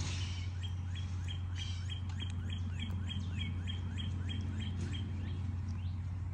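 A songbird singing a fast run of rising whistled notes, about three a second, that grow fainter near the end, over a steady low hum.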